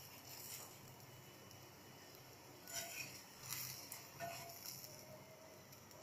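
Quiet cooking sounds from a paratha on a tawa: a few soft clicks and scrapes of metal tongs against the bread and pan about three to four seconds in, over a faint steady hiss. A faint thin steady tone begins near the end.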